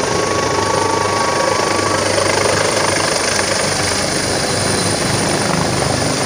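Helicopter landing close by: its rotor and engines make a loud, steady din, with a steady high whine running through it.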